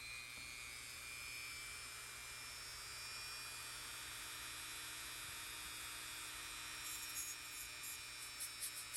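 Dremel rotary tool with a small wire brush running at steady speed, a high whine, scrubbing dirty, corroded copper contacts in a turn-signal bulb socket. A series of light, rapid ticks comes in near the end.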